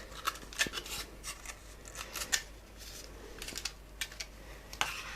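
Light clicks and scrapes as the AM4 CPU socket's retention lever is unhooked and handled on the motherboard, a dozen or so small ticks at irregular intervals.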